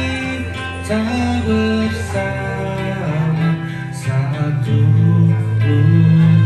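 A man singing karaoke through a corded microphone over a recorded backing track with guitar, held notes and a steady bass line, getting a little louder towards the end.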